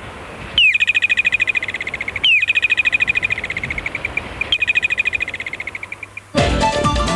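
A bird-like trilling call, heard three times: each a quick downward slide into a fast, even trill that fades away over about a second and a half. Music starts abruptly near the end.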